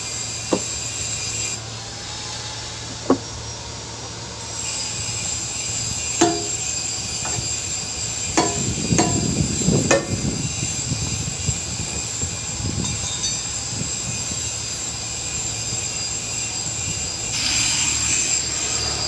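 Sharp metal-on-metal hammer blows, about six spread over the first ten seconds, some ringing briefly, over a steady machine drone.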